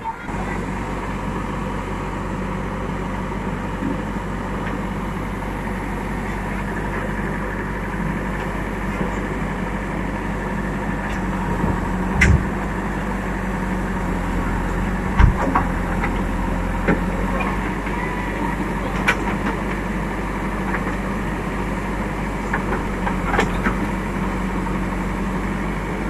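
JCB backhoe loader's diesel engine running steadily while the backhoe works, with a few sharp metallic knocks as the bucket strikes the sluice gate, the loudest about 12 and 15 seconds in.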